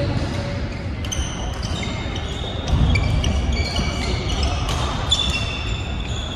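Court shoes squeaking again and again on a sports-hall floor during a badminton rally, with a few sharp taps. Under them runs a steady low hall rumble that gets louder about three seconds in.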